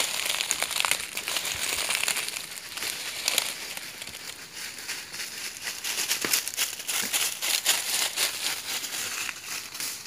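Footsteps crunching through dry fallen leaves and twigs, with many irregular crackles.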